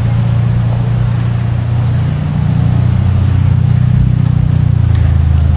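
A motor vehicle engine running steadily close by, a low drone that shifts slightly in pitch about two seconds in and again near the end.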